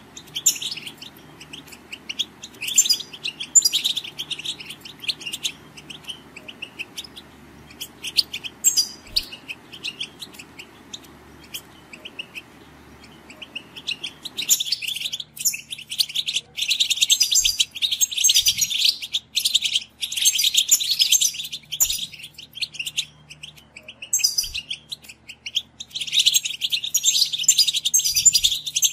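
European goldfinches twittering in a flock: fast, tinkling chattering phrases in bursts, denser and louder in the second half. This is 'batbata', the goldfinch chatter used as a lure to draw wild goldfinches in for trapping.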